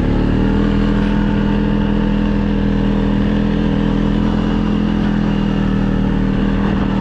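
Vehicle engine running steadily at an even speed, a constant hum with a steady pitch over a rushing noise.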